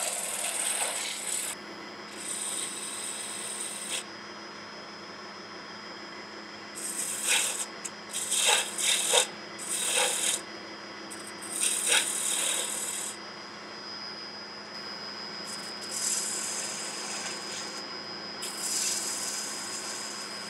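Wood lathe running with a steady hum while a hand-held gouge cuts the spinning wooden handle blank down in diameter: a hissing, scraping sound that comes and goes with each pass, louder and choppier in a run of cuts around the middle.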